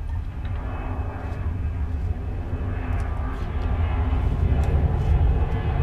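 Steady low drone of an engine, with a few held tones above it, growing louder toward the end, over a few faint small clicks.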